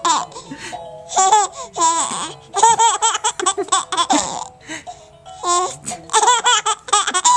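Baby laughing in repeated runs of high-pitched giggles and squeals, with music playing underneath.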